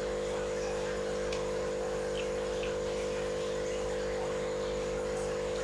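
A steady hum made of several close, unchanging tones, with a few faint light clicks as food is handled at the table.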